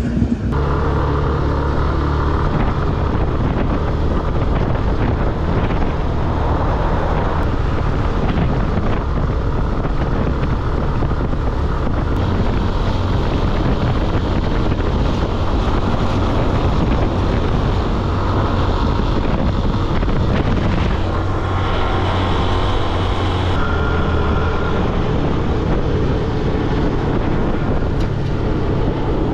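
A car driving along steadily: a constant low drone of engine and tyre noise with rushing wind.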